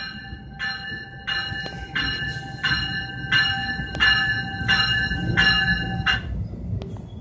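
NJ Transit commuter train pulling into a station platform, a bell ringing in even strikes about three every two seconds until about six seconds in, over the low rumble of the train.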